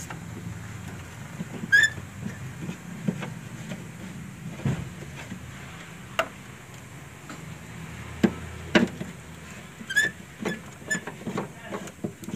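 Socket wrench working the 10 mm mounting bolts of a car's wiper linkage loose: irregular metallic clicks and knocks, with a short high squeak about two seconds in and again about ten seconds in, over a steady low hum.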